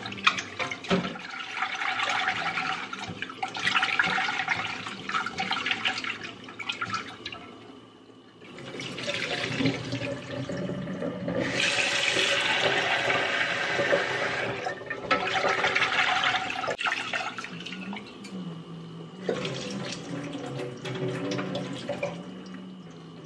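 Rice being washed in a pot under a running kitchen tap, rinsed over and over: the tap runs in several stretches, loudest a little past the middle, with the grains swished in between.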